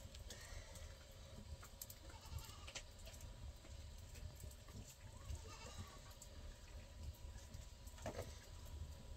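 Faint bleating of livestock over a low rumble, with scattered sharp crackles from the wood fire and one louder crack near the end.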